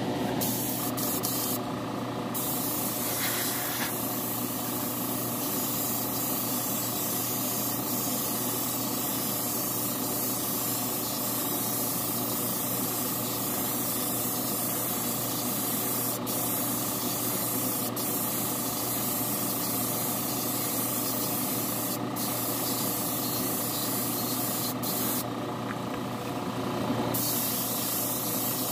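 Spray gun hissing as it lays a first coat of urethane clear on a model car body. The hiss breaks off briefly about two seconds in and again for a couple of seconds near the end, over the steady hum of the spray booth's fan.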